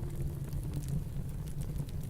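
Wood fire crackling in a fireplace, a few sharp pops scattered over a steady low rumble of snowstorm wind.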